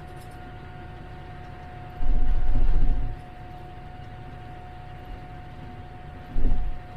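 Tractor engine running steadily, heard from inside the cab, with a thin steady whine over its drone. Twice a loud low rumble breaks in: about two seconds in for roughly a second, and briefly near the end.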